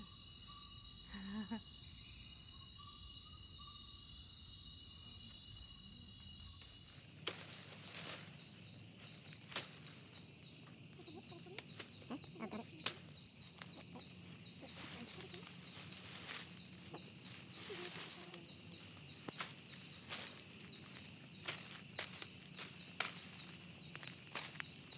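A chorus of insects gives a steady, high-pitched buzzing. From about seven seconds in, irregular sharp clicks and snaps of footsteps through leaf litter and undergrowth sound over it.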